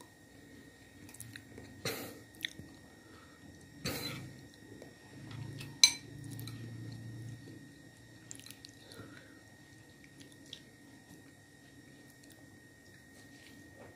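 Close eating sounds: chewing mouthfuls of rujak with ice cream, and a metal spoon scraping against a ceramic bowl. About six seconds in, the spoon strikes the bowl with one sharp, ringing clink.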